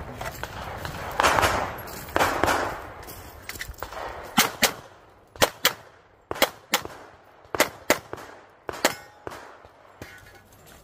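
Pistol fire: over a dozen sharp shots, mostly fired in quick pairs a fraction of a second apart, with about a second between pairs.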